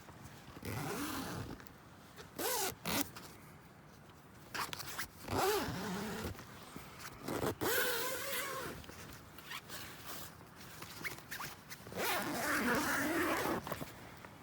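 A zipper being pulled in about five separate raspy strokes, some short and some drawn out.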